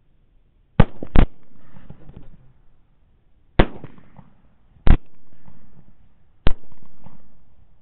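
Five rifle shots: a quick pair about a second in, then three single shots about a second and a half apart, each report trailing off in a rolling echo.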